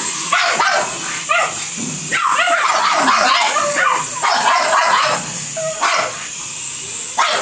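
Pugs barking and yipping in quick, irregular bursts, worked up over a toy helicopter. A steady high whine runs underneath.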